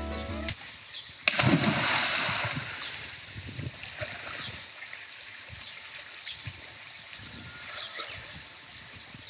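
A person jumps into seawater off a harbour quay with one loud splash about a second in. The splash fades over a couple of seconds into lighter sloshing and splashing as they swim.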